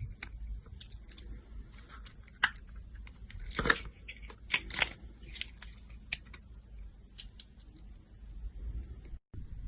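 A knife cutting into a dry bar of soap: scattered crisp crackles and short scrapes, with louder crunches about two and a half, three and a half and five seconds in. The sound drops out briefly near the end, and a faint steady hiss follows.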